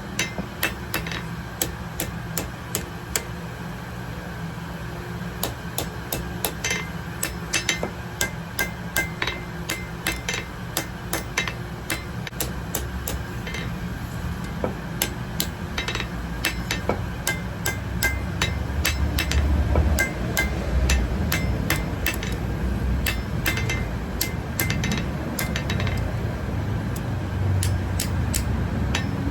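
Blacksmith's hammer striking metal on an anvil: irregular blows, often one or two a second with short pauses, some leaving a brief high ring. Under them runs a steady low rumble that grows louder in the last third.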